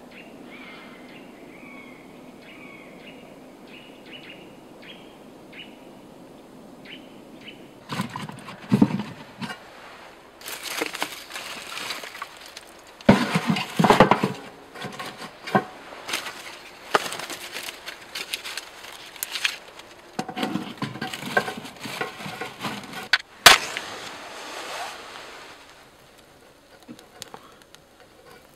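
Faint bird chirps at first. From about eight seconds in, split firewood knocks and clatters as it is stacked into a small steel wood stove, with a single sharp click near the end of the clatter.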